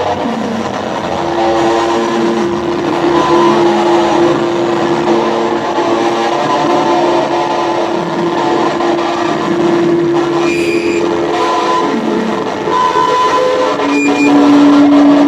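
Live improvised free-noise music: a loud, dense wash of noise under a steady droning tone, which drops to a lower held tone near the end.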